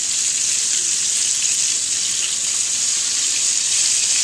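Breaded chicken fried steaks frying in hot oil in a pan: a steady, high-pitched sizzle.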